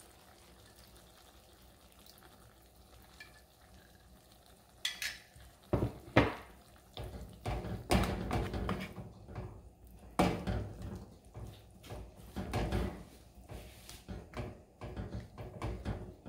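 Wooden spatula stirring tomatoes, bell peppers and onion in a thin sauce in a frying pan: irregular knocks and scrapes against the pan, starting about five seconds in after a quiet stretch.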